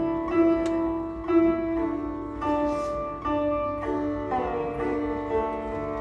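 Sitar played solo: single plucked notes ring out over steady sympathetic-string resonance, with a note bent upward by a pull on the string a little over four seconds in.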